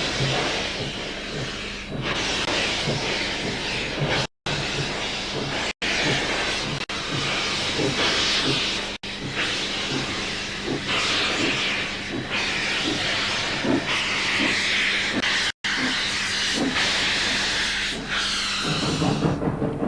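Steam locomotive hissing loudly as it lets off steam, heard in several short edited stretches with brief dropouts between them.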